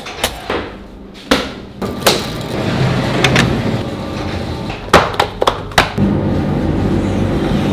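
Bakery work noise: scattered sharp knocks and clatter, then a steady machine hum from about six seconds in.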